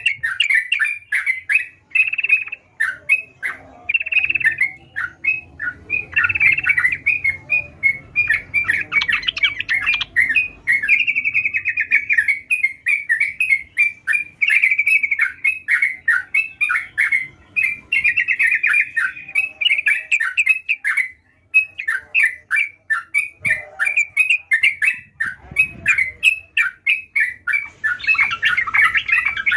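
Trucukan (yellow-vented bulbul) singing without pause: a rapid string of short chirping notes, with denser chattering runs about a third of the way in and near the end.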